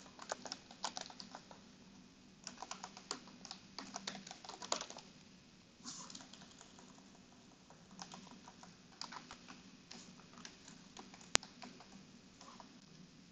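Computer keyboard typing in short runs of keystrokes with pauses between them, and one sharper single click near the end.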